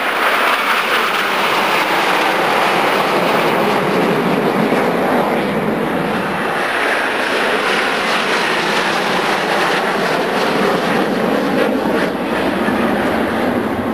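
Formation of Aermacchi MB-339 jet trainers flying past, their Viper turbojets making a steady, loud jet noise.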